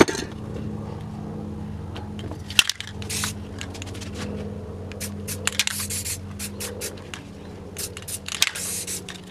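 Sheet of paper crinkling and scraping against the wet spray-painted surface in a series of short rustles, with a couple of sharp clicks.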